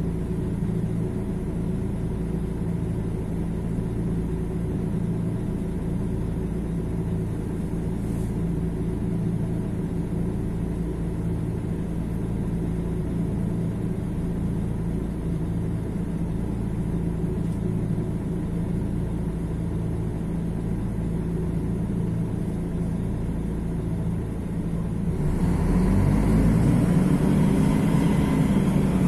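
Mercedes-Benz OM 457 LA inline-six diesel of an O-500MDA bus idling steadily, then revving up and getting louder about 25 seconds in, as when the bus accelerates.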